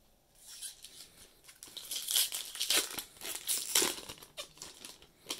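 Foil Magic: The Gathering booster-pack wrapper torn open and crinkled by hand, a crackling that is loudest in the middle. A single sharp click near the end.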